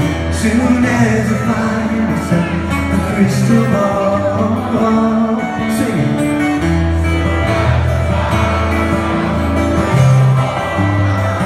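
A singer performing a song live, accompanied by a strummed acoustic guitar.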